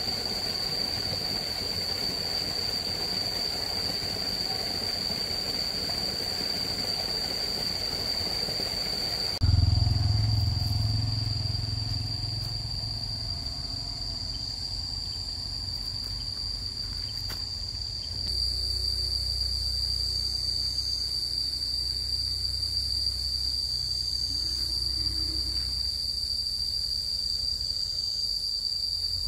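Insects shrilling outdoors in one continuous high-pitched tone. A low rumble comes in suddenly about a third of the way through and fades, and a lighter one sets in about two-thirds of the way through.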